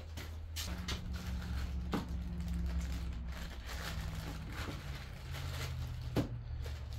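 Clear plastic bag crinkling and rustling as it is opened by hand to take out a chainsaw chain, with a couple of sharp clicks, over a steady low hum.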